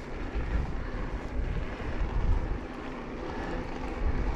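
Wind buffeting the microphone of a moving mountain bike, a gusty, uneven rumble, with the bike's rolling noise underneath.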